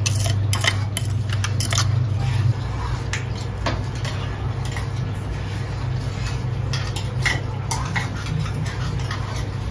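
A steel spoon scraping and clinking against a stainless-steel mixer-grinder jar as ground almonds and cashews are scraped out onto a steel plate, in many short knocks and scrapes. A steady low hum runs underneath and gets quieter about two and a half seconds in.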